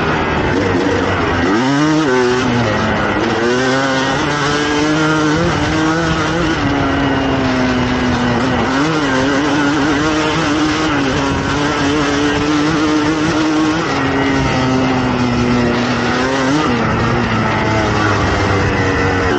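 2007 Suzuki RM250's two-stroke single-cylinder engine with an FMF exhaust, ridden under load. The engine note holds mostly steady but drops and climbs again several times as the throttle is rolled off and back on, most sharply about two seconds in.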